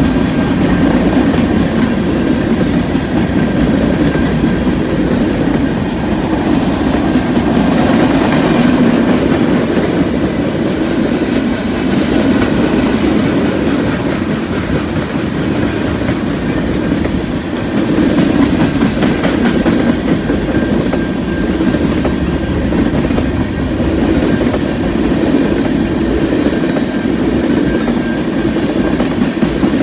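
Freight train cars (covered hoppers, then tank cars) rolling past close by: steel wheels on rail making a steady, loud rolling noise, with a faint high steady tone above it.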